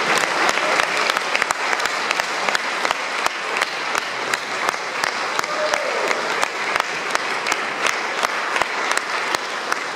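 Audience applauding steadily, with many sharp individual claps standing out.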